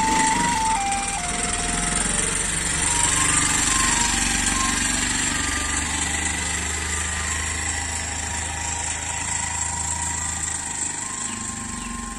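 Choon paan bread tuk-tuk's loudspeaker playing its electronic jingle, a simple melody of single notes, over the three-wheeler's engine running as it moves off. The sound grows gradually fainter as the tuk-tuk drives away.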